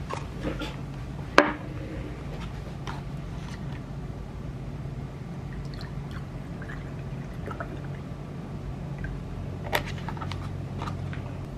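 Milk poured from a carton into a paper cup. A sharp knock of something set down on the table about a second in and another near the end, over a steady low hum.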